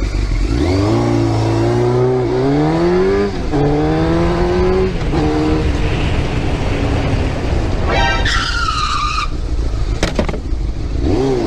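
Sport motorcycle engine accelerating hard, its pitch climbing, dropping at a gear change and climbing again, then running on under traffic noise. About eight seconds in comes a high squeal lasting about a second, and near the end a sharp knock.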